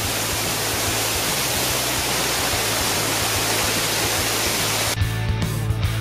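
Multi-tiered waterfall rushing, a steady, even roar of falling water. About five seconds in, an upbeat rock music track comes in over it.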